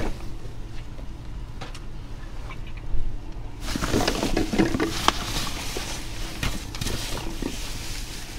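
Plastic trash bags rustling and being shoved around inside a steel dumpster, with a few knocks; the rustling gets busier about halfway through.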